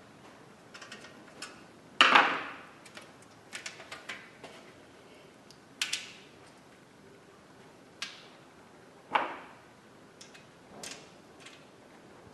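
A metal mudguard and its stays being handled and fitted with a screwdriver: scattered light clicks and metal clanks. The loudest come about two seconds in and again about nine seconds in.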